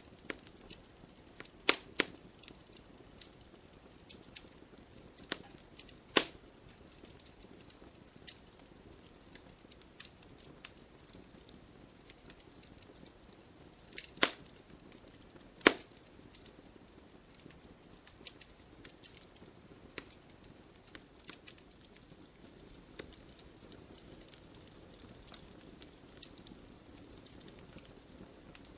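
Wood fire burning in a fireplace: a soft steady hiss with frequent small crackles and a few sharp louder pops, the strongest about 2, 6, 14 and 16 seconds in.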